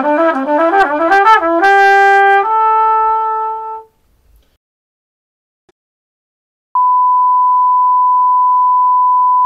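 Short logo jingle: a quick run of rising notes that settles on a held note, fading out about four seconds in. After a few seconds of silence, a steady 1 kHz reference tone, the test tone that goes with colour bars, starts about seven seconds in.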